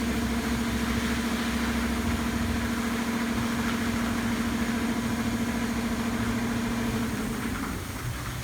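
Touchless car wash machine running: a steady motor hum over a hiss of spraying water. The hum dies away about seven and a half seconds in, leaving a softer hiss.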